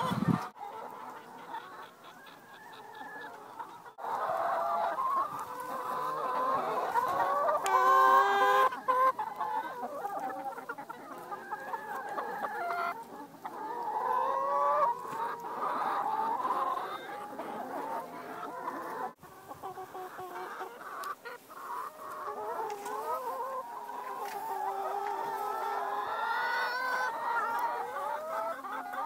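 A large flock of free-range brown laying hens clucking and calling, many short calls overlapping, with a louder squawk about eight seconds in.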